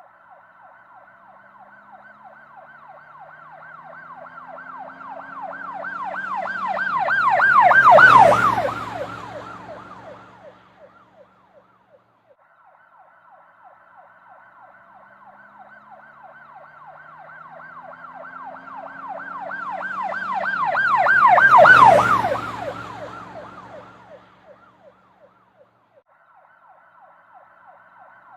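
An emergency-vehicle siren with a fast rising-and-falling wail approaches, passes loudest about eight seconds in with a drop in pitch, and fades away. The same pass comes again near-identically, peaking about twenty-two seconds in, as if the same siren recording is looped.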